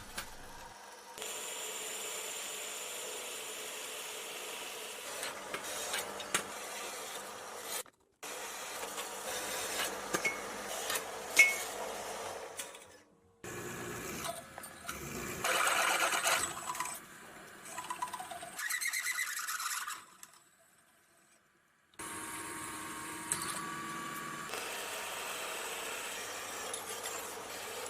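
Power saw cutting miters in steel stock for a welded frame, a steady grinding cut that stops abruptly a few times.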